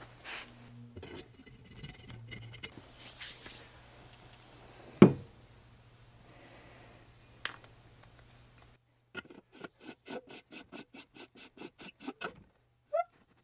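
Metal parts of a restored antique copper Empire fire extinguisher being handled and fitted: rubbing and scraping, a sharp knock about five seconds in, then a quick run of about four clicks a second as the red cap is screwed onto the top, and a short squeak near the end.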